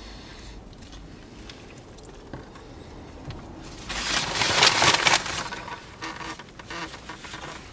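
Paper rustling and crinkling, most likely a paper napkin being pulled out and unfolded, loud for about a second and a half starting nearly four seconds in, followed by a few small handling clicks.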